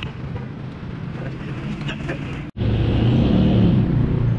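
Steady low rumble of street and vehicle noise around a roadside repair shop, with a few faint clicks. It drops out for an instant about two and a half seconds in and comes back louder.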